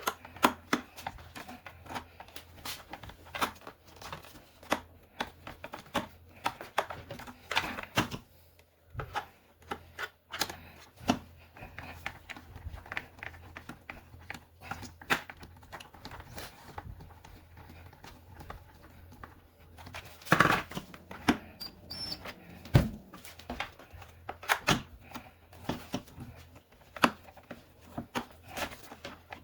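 Plastic housing parts of a Bissell carpet cleaner being handled and fitted back together by hand: irregular clicks and knocks, with a louder scraping rustle about twenty seconds in.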